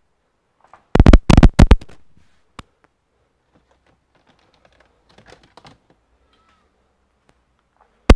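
Sharp clicks and knocks of hard objects being handled: four or five in quick succession about a second in, a smaller one shortly after, a few faint ticks in the middle and one loud click near the end.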